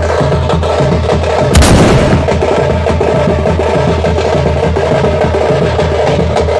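Background music with a heavy, steady bass beat and percussion, with one sudden loud hit about a second and a half in.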